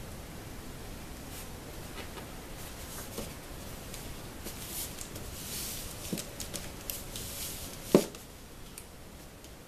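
Hands handling and pressing a sheet of EVA craft foam onto cardboard milk-carton boxes: soft rustling and scuffing with small clicks, and one sharp knock about eight seconds in.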